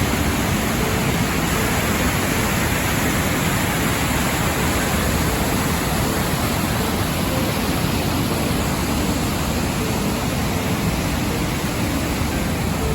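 Steady roar of Sogi Falls, a broad waterfall, crashing water as an even, unbroken rush.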